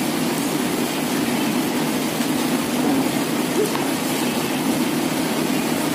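Steady background noise of a restaurant dining room, an even low rumble with no distinct events.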